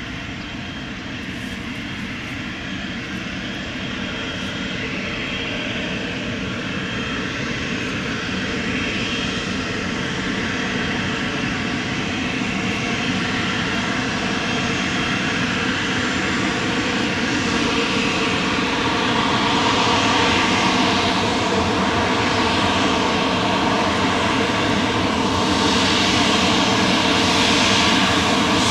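Twin turbofan engines of an Embraer ERJ-195 jet airliner running, a steady whine of many tones over a rushing noise, growing steadily louder.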